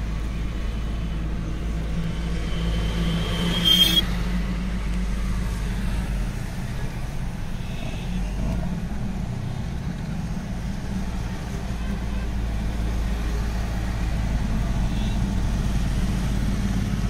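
Mahindra Scorpio N's 2.2-litre diesel engine running steadily at low revs, heard from inside the cabin as a low drone with road noise. About four seconds in there is a brief high-pitched tone ending in a sharp noise.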